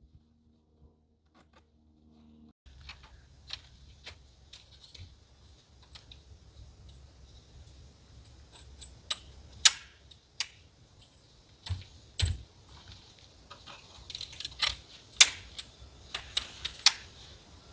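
Awning poles being handled and fitted, giving irregular sharp clicks and clacks, the loudest about ten seconds in and a cluster of them near the end, over a low steady rumble.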